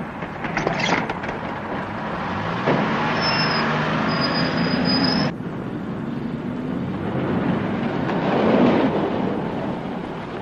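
Street traffic, with vehicles driving past. A thin, high, steady whine runs over the noise from about three seconds in and cuts off suddenly at about five seconds, along with part of the noise. The traffic noise swells again near the end.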